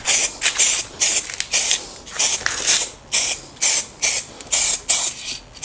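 Aerosol spray-paint can sprayed in short repeated bursts of hiss, about two to three a second.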